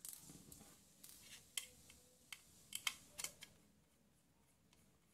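Faint handling sounds of a small screwdriver being set to the screws of a plastic-and-metal amplifier board: a few sharp clicks and taps between about one and a half and three and a half seconds in, then near quiet.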